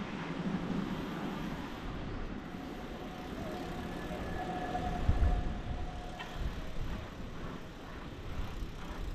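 Road traffic heard from a bicycle, with a faint whine and a motor vehicle passing close about five seconds in.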